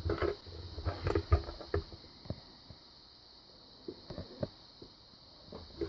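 Light clicks and taps of a lock pick and tension tool being worked into a padlock's keyway, with dull handling knocks. The clicks cluster in the first two seconds and come again about four seconds in.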